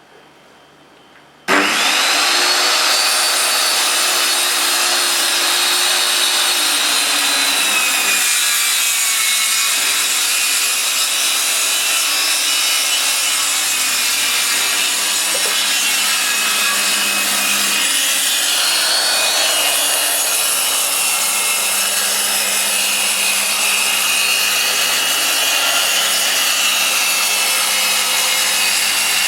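Handheld circular saw starting up about a second and a half in and cutting steadily through a sheet of wood, its motor whine wavering in pitch under load.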